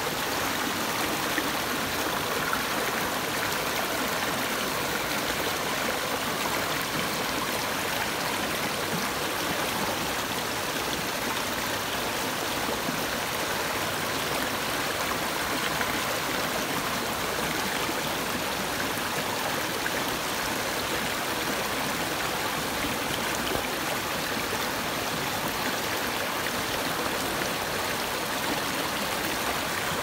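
Shallow forest stream running over and between rocks, a steady rush of water spilling through a small cascade.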